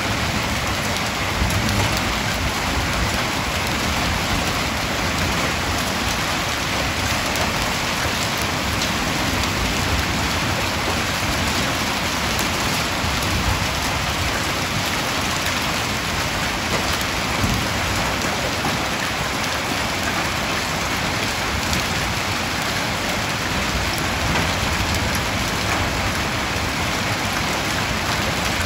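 Heavy rain falling steadily in a downpour.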